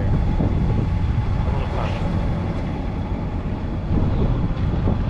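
Sportfishing boat's engine running steadily at low speed, a continuous low rumble with wind and water noise over it.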